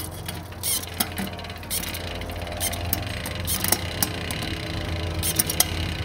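Bicycle drivetrain running with the chain turning steadily over the cassette, while a Shimano XTR Di2 electronic rear derailleur shifts one cog at a time. Several sharp clicks come as the chain changes cogs. It runs without rubbing noise, the sign that the derailleur is aligned with the cogs.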